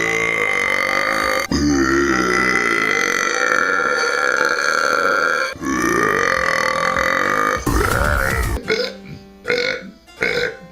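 A man's long, loud, deliberate burps in quick succession: three drawn-out belches of one to four seconds each, each cutting off abruptly, then a few shorter, choppier burps near the end.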